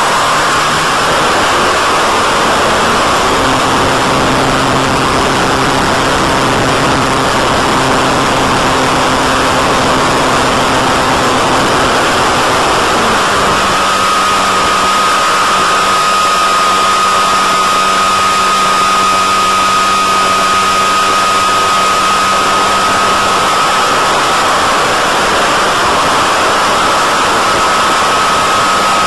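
Onboard sound of a BTE Delta Vortex RC flying wing in flight: its electric motor and propeller hum under a heavy, steady hiss. About 13 seconds in the hum shifts lower and a thin steady whine appears.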